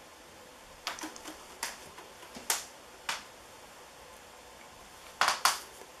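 A 1985 4 Saisons ceiling fan running quietly with a faint steady hiss. Sharp clicks come at irregular times over it: a little cluster about a second in, single ones around two and three seconds, and two louder ones near the end.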